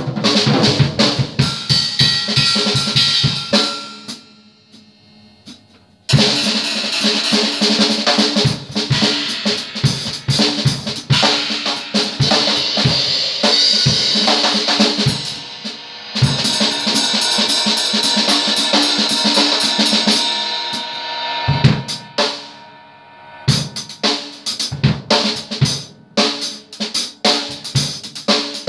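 Drum kit played in busy fills, with toms, bass drum and snare under metal crashes that ring on. The playing stops twice briefly, about four seconds in and again a little past twenty seconds, leaving the ring to fade before the next run starts.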